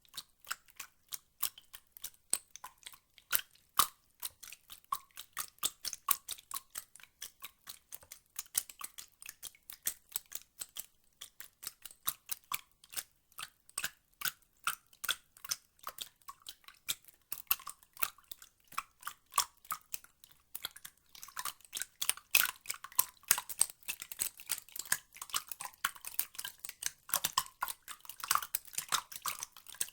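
Water dripping and splashing in quick, irregular drops, sharp clicks several a second, many with a short plinking note. It gets busier and louder about two-thirds of the way in.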